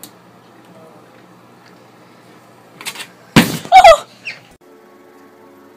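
A kitten tumbling off a windowsill: a loud thump about three and a half seconds in, followed at once by a short wavering cry.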